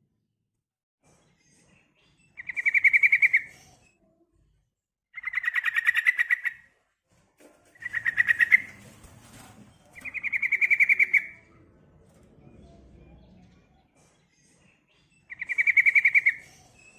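Female sooty-headed bulbul (trucukan) calling: five fast rattling trills, each about a second long, with pauses between. This is the female's call to males, played to draw male bulbuls into song.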